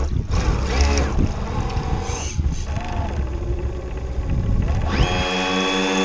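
Electric motor of a radio-controlled model boat whining, with wind buffeting the on-board microphone and water splashing at the hull. About five seconds in, the motor whine becomes a clear, steady pitched tone.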